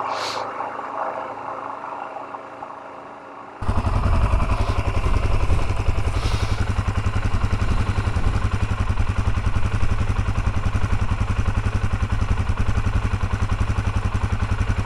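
Suzuki DR-Z400S dual-sport motorcycle ridden along a loose cinder road, its engine and tyre noise picked up by a helmet camera. About three and a half seconds in, the sound cuts to a louder motorcycle engine idling close by, with a deep, rapid, even pulsing.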